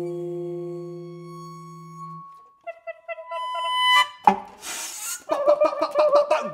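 Tenor saxophone and percussion playing experimental contemporary music: a long held low note with a thin high tone above it, cut off about two seconds in, then short clipped notes, a burst of hiss, and a fast warbling figure near the end.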